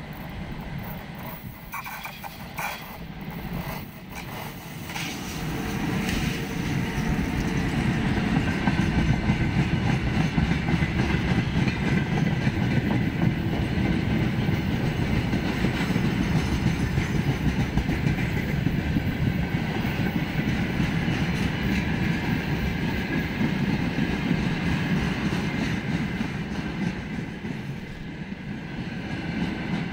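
Freight train of tank cars hauled by a VL10U electric locomotive rolling past close by: wheels rumbling and clattering on the rails. It grows louder over the first eight seconds or so as the train arrives, then holds steady.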